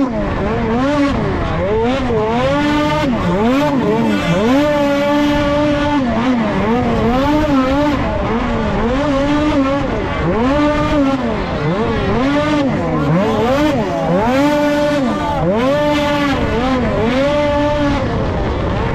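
Racing snowmobile's two-stroke engine on a snocross track, revving up and down over and over: it climbs, holds high for a moment, then drops off, again and again.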